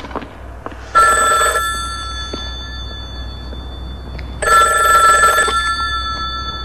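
Telephone ringing twice: a short ring about a second in and a longer ring near the middle, each trailing off slowly.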